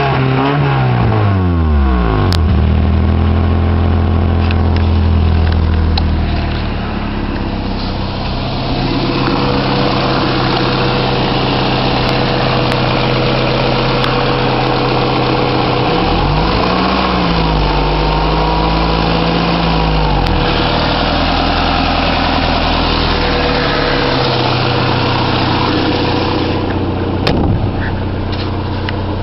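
1991 Honda Accord EX's 2.2-litre four-cylinder engine running through leaking exhaust, its pitch rising and dropping at the start and again midway, with steady running in between. The leaks give the exhaust a racy note.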